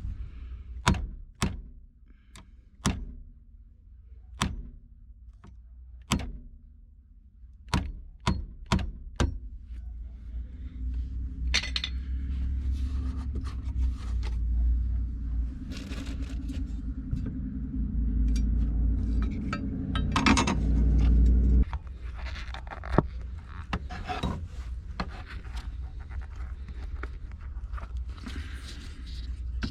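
A string of sharp knocks and clicks from parts and tools being handled, then a power tool's motor running steadily for about twelve seconds before stopping abruptly, followed by lighter clicks and scraping.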